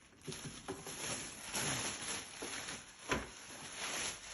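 Handling noise from moving the foot massager and its packaging: uneven rustling with scattered soft knocks and one sharp knock about three seconds in.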